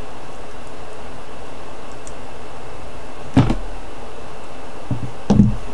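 Small knocks and clicks of metal jewelry pliers being handled against the craft table while opening and closing a jump ring, two distinct knocks about three and a half seconds in and near the end, over a steady background hiss.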